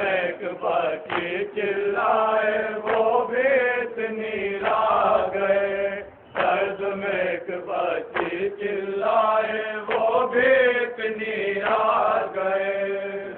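A man chanting a noha, a Shia lament, through a microphone and loudspeaker. He sings long melodic phrases with short breaks, and his voice drops out briefly about six seconds in.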